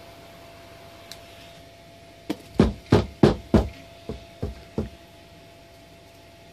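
A hand beating on the carpet-wrapped cardboard barrel about eight times in under three seconds, the first five blows heavier than the last three, to put out flame on the singed carpet edge.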